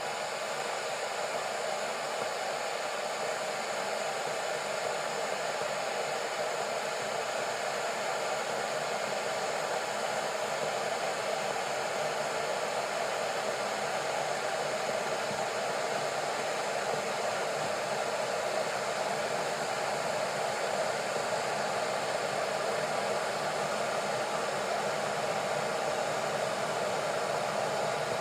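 Kettle heating water toward the boil: a steady rushing hiss and rumble that grows slightly louder over the stretch.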